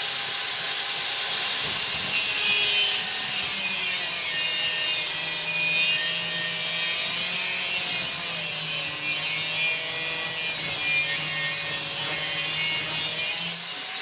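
Angle grinder cutting steel, running continuously with a wavering pitch as it bites, then stopping abruptly near the end.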